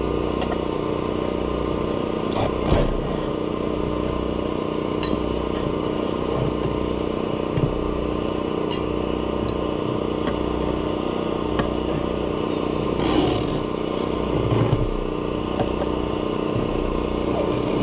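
Air compressor running steadily, with a pulsing low hum and a few short metallic clanks from tire work on top.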